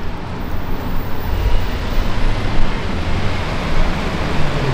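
City road traffic: a steady rush of car tyres and engines on the street.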